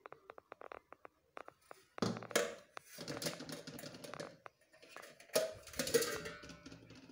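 A stainless steel cooking pot being handled: a few light clicks, then a louder clatter of knocks and scrapes about two seconds in, and another just past five seconds.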